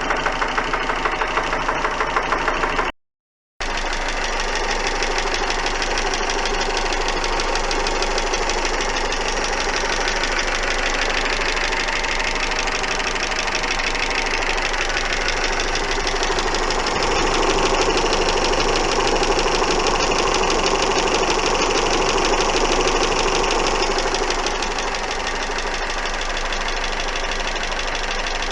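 Car engine running with a fast, even ticking knock, which the owner takes for a knocking camshaft. The sound cuts out briefly about three seconds in, and the engine runs a little louder for several seconds past the middle.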